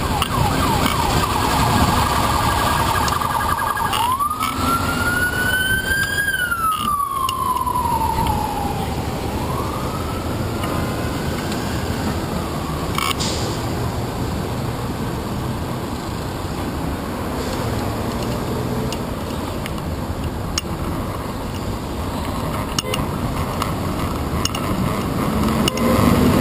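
An emergency vehicle siren warbles fast for the first few seconds, then wails in slow rises and falls until about twelve seconds in. Steady street traffic noise runs under it and carries on alone after the siren fades.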